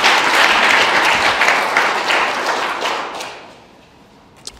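Small audience applauding, the clapping dying away about three seconds in.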